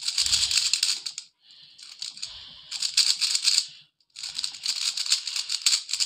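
GAN 13 Maglev magnetic 3x3 speed cube being turned as fast as possible. Its layers make a rapid clicking rattle in three quick spells, with short pauses about a second in and about four seconds in.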